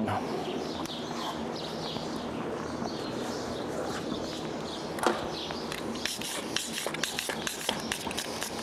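Faint bird chirping over quiet stable background noise, with scattered light clicks and taps as a horse's hoof is held up and worked on for shoeing. There is one sharper tap about five seconds in and a quick run of small clicks near the end.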